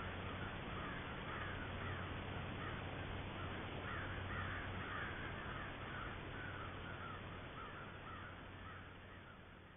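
American crows cawing in a long, rapid series of harsh calls that thin out near the end, over a low steady hum.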